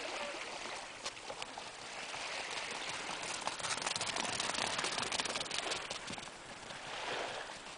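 Two salukis running past over a frozen, stony beach, their paws striking the ground in quick footfalls that are loudest in the middle few seconds as they pass close by.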